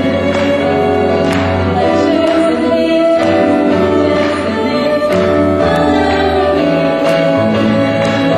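Christian song with singing over instruments and a steady beat.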